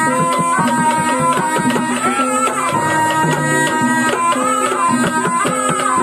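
Live Banyumas ebeg music: a slompret (Javanese shawm) plays a wavering, bending melody over quick kendang hand-drum strokes and steady gamelan percussion.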